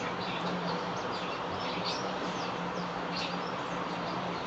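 Small birds chirping in the background, many short quick chirps, over a steady low hum.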